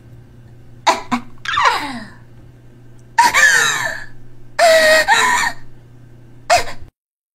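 A voice in several loud, breathy shrieking outbursts, one sliding down in pitch, over a steady low hum; everything cuts off abruptly near the end.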